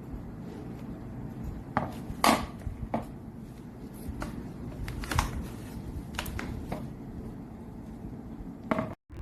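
Scattered light knocks and clinks of kitchenware being handled, about eight in all with the loudest about two seconds in, over a steady low rumble. The sound cuts off abruptly near the end.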